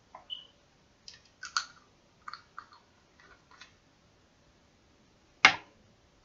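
Small perfume bottles and droppers being handled: a series of light clicks and taps, with one sharp, louder click about five seconds in.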